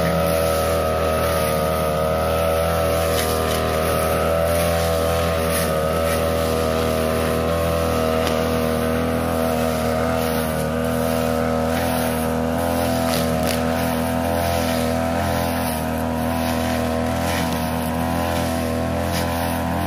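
Backpack brush cutter engine running at steady high speed while its blade cuts through tall grass.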